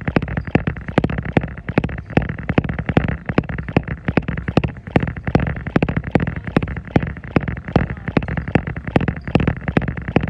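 Running shoes striking a treadmill belt at a steady jogging pace, about three footfalls a second, over a steady background noise.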